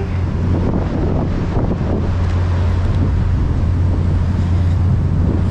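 Wind buffeting the action camera's microphone over a steady low rumble of road traffic.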